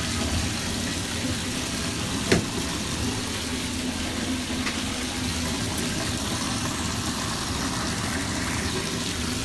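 Bathtub tap running steadily into a filling tub, a constant rush of water with a low hum under it. A single sharp click a little over two seconds in.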